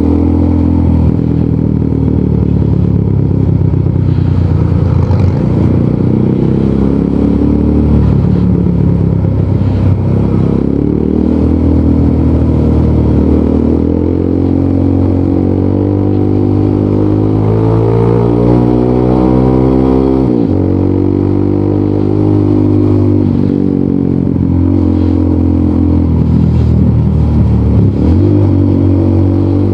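Rusi Sigma 250 motorcycle engine breathing through an aftermarket LeoVince muffler, ridden on the road. Its pitch climbs steadily under throttle, drops sharply about two-thirds of the way through as the rider shifts up, then climbs again and drops once more near the end.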